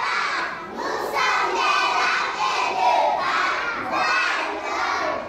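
A class of young children singing together in unison, in loud phrases about a second long.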